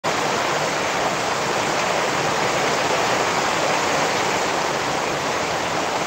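Rain falling steadily: a dense, even hiss with no single drops or gusts standing out.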